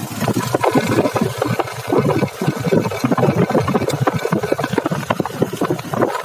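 Engine of a moving vehicle running, with a dense, irregular rattle.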